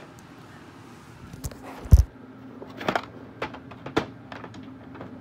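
Handling noise: a few scattered knocks and clicks as the filming phone and toys are moved about, with one louder low thump about two seconds in, over a faint steady hum.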